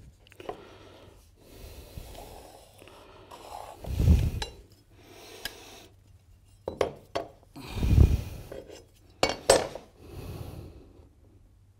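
A metal carpenter's square clinking and knocking against a multilayer floor plank as it is set and shifted into place for marking, with a couple of dull thumps as the plank is handled, about four and eight seconds in.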